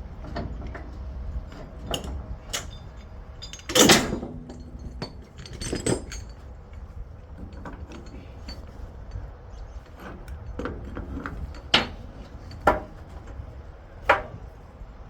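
Heavy steel transport chains clanking and rattling as they are handled to chain an excavator down on a trailer, with scattered clinks and several sharp metal clanks, the loudest about four seconds in.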